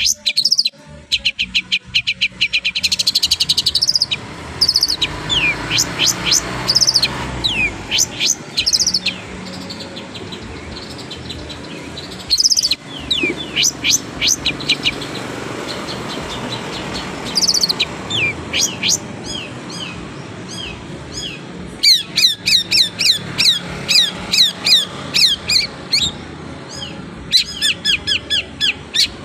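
Long-tailed shrike (cendet) singing: strings of sharp, quickly falling chirps broken by short pauses, turning into a faster run of rapidly repeated notes in the last third.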